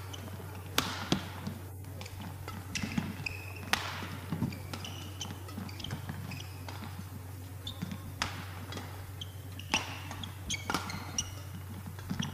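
Badminton rally: sharp smacks of rackets striking the shuttlecock, some in quick pairs and others several seconds apart, with short high squeaks of court shoes on the mat between them. A steady low hum runs underneath.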